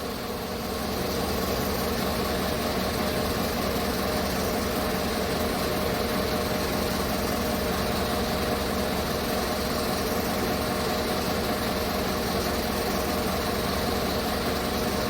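2015 Chevrolet Tahoe's V8 idling steadily with its cleaned spark plugs refitted. The owner hears a big difference: the P0300 random misfire is gone.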